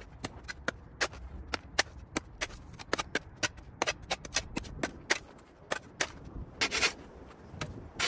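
Irregular sharp clicks and scraping strokes, a few a second, from debris being scraped and gathered off pavement. Longer, rougher scrapes come about six and a half to seven seconds in.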